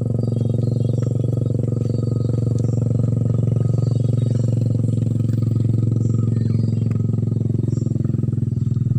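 A steady engine drone with an even, low pitch that does not rise or fall.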